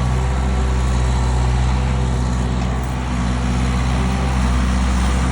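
Skid steer engine running steadily while spreading a load of gravel, easing off slightly about three seconds in.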